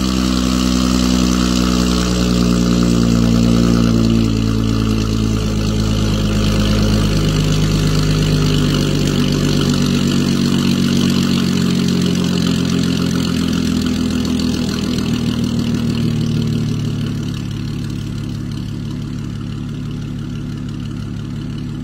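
Audi A7 3.0T's supercharged V6 idling through an ARMYTRIX cat-back valved exhaust, a steady deep drone with no sharp revs. The idle is raised at first, as on a cold engine just started, and drops lower and quieter about seventeen seconds in.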